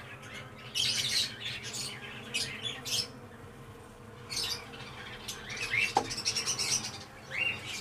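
Aviary birds chirping in short, repeated bursts, with pauses between them.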